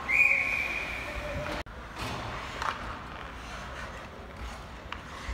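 A referee's whistle, one steady high blast lasting about a second and a half that cuts off abruptly, followed by a few faint knocks of sticks or puck.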